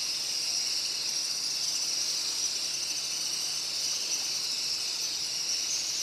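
Steady, high-pitched insect drone, an even unbroken shrill chorus like cicadas or crickets.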